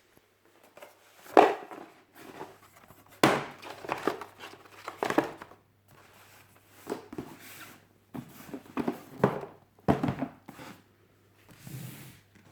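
Packaging being handled and unwrapped: irregular crinkling and rustling with a few sharper knocks, the loudest about a second and a half in.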